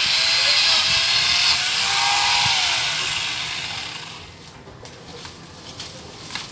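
Angle grinder fitted with a chainsaw bar attachment cutting into a dead coconut palm trunk, its motor whine wavering under load. About three seconds in the motor winds down with a falling pitch, leaving a few faint knocks near the end.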